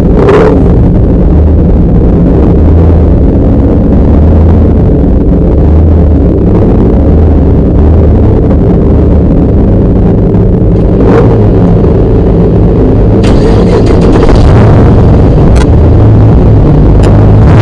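Rally car's engine running loud inside the stripped, roll-caged cabin, heard at close range, with the level swelling and easing as the throttle is worked, and a few sharp knocks.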